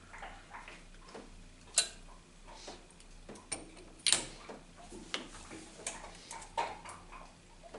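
Irregular small clicks and knocks of hands handling the Meyer E47 plow pump's solenoid coil and its wiring, with two sharper clicks about two and four seconds in.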